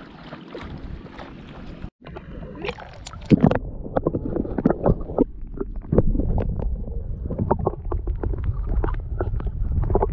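Soft wind and water noise at the surface, then, after a sudden cut about two seconds in, underwater sound: a low churning rumble of moving water with many irregular clicks and crackles.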